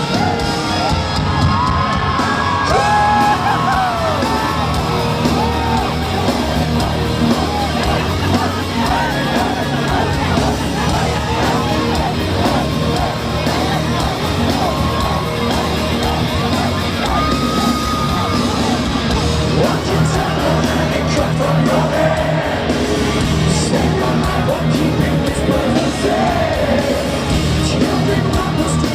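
Heavy metal band playing live through a loud concert PA, with a large crowd yelling, whooping and singing along.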